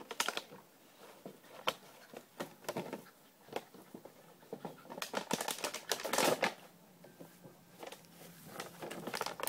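Plastic bottle crackling and crunching in a dog's jaws as it bites and shoves it about, in irregular clusters of sharp crackles, busiest about five to six and a half seconds in.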